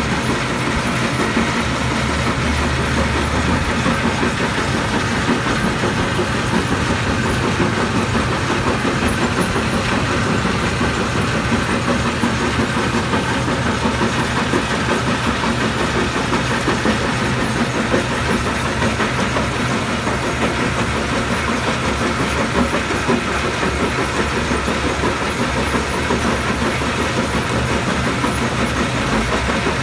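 Stone crusher running: a loud, steady, continuous machine noise that does not let up.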